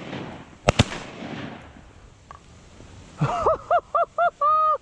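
Two shotgun shots fired in quick succession about two-thirds of a second in, echoing after. Then, from about three seconds in, a run of five loud quacks, the last one held longer.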